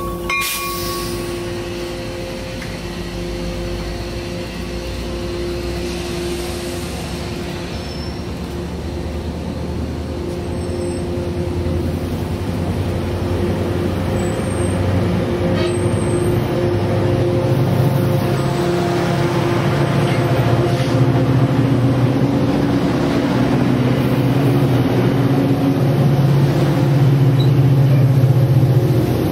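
Coaster commuter train pulling out and rolling past: the cab car and bilevel coaches go by first, then the F40PHM2-C diesel locomotive pushing at the rear, its engine growing louder toward the end. The locomotive bell rings briefly at the start and stops about a second in.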